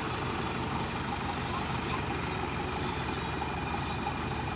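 Heavy diesel engine running steadily, with an even low throb and no revving.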